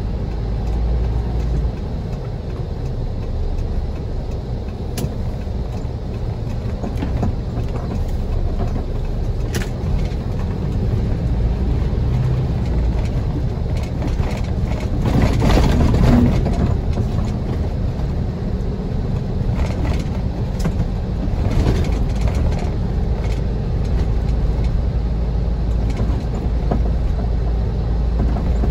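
Car driving over a rutted, snow-covered road: a steady low rumble of engine and tyres, with a few sharp clicks and a louder swell of noise about halfway through.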